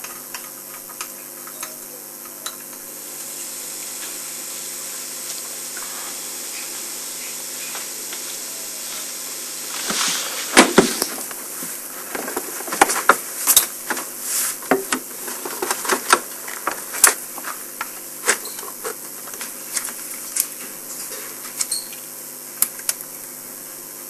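Hands working on a small mechanism with tools: a soft hiss for several seconds, then from about ten seconds in an irregular run of sharp clicks and knocks as parts are handled and fitted.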